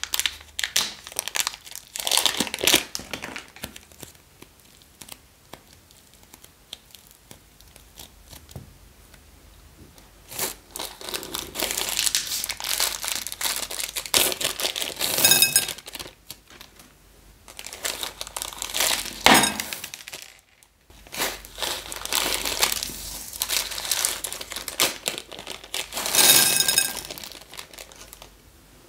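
Crinkling and tearing of thin plastic wrappers being peeled off pieces of soft modelling clay, in several bouts with quiet gaps between.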